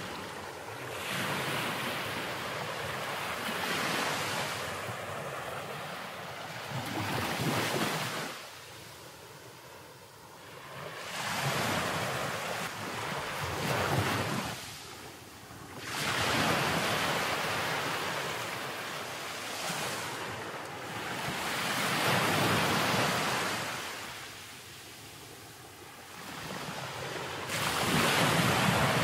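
Ocean surf breaking and washing up a sandy beach, the rush swelling and fading every few seconds, with wind.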